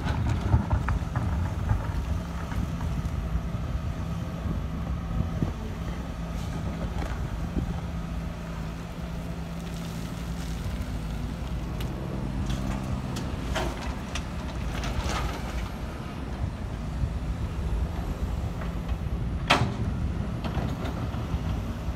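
Sumitomo hydraulic excavator's diesel engine running steadily as it digs and loads soil into a dump truck, with a few knocks from the bucket and the work, the sharpest near the end.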